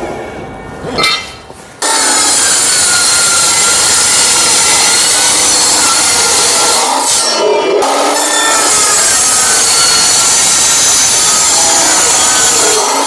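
Metal-cutting miter saw with a steel blade sawing through a steel pipe: a loud, steady grinding cut that starts abruptly about two seconds in.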